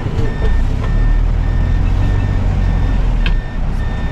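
A vehicle's electronic warning beeper sounding a steady run of short high beeps, a little under twice a second, over the low rumble of the engine.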